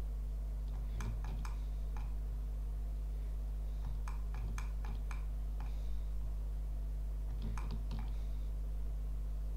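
Computer mouse buttons and keyboard keys clicking in three short clusters of sharp clicks, over a steady low hum.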